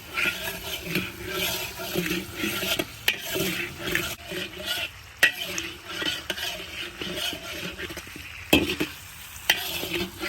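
Fried chicken pieces sizzling in a pan of thick garlic-chili-soy sauce, stirred with a utensil that scrapes and knocks against the pan now and then.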